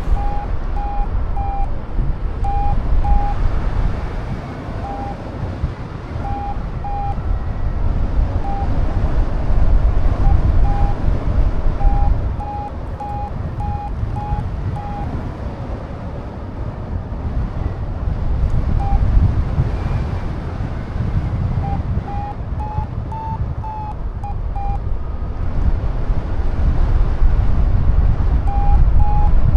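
Strong wind buffeting the microphone with a heavy low rumble, over a flight variometer beeping in short tones, in runs with pauses between. The beeps rise slightly in pitch about three quarters of the way through, signalling stronger climb in lift.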